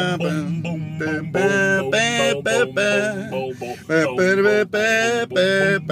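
Men singing together, in phrases of held, wavering notes broken by short pauses.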